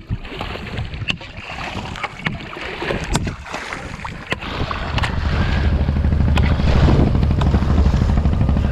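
Shallow water sloshing and splashing as someone wades through it with a net pole, with several sharp splashes in the first half. A steady low rumble sets in about halfway through and grows louder.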